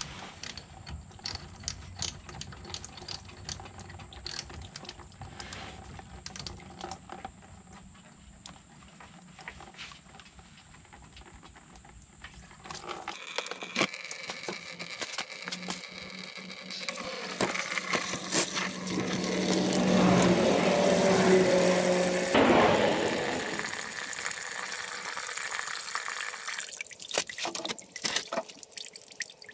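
Hand tools clicking and clattering for the first half. Then, after an abrupt change, coolant pours out of the radiator drain into a container, a rushing splash that swells loud and then eases off.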